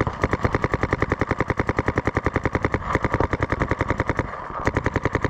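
Paintball marker firing rapid strings of shots, more than ten a second, each a sharp pop, with two short breaks: one about three seconds in, the other near four and a half seconds.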